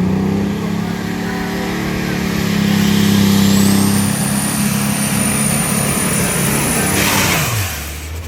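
Light Superstock pulling tractor's turbocharged diesel engine running at high revs, with a high turbo whistle rising about three and a half seconds in and holding. About seven seconds in comes a burst of hiss, and the engine winds down sharply to a low idle.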